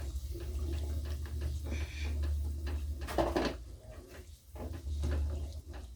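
Spoon stirring milk into a pot of tomato stew, with light scrapes and clicks against the pot over a steady low hum.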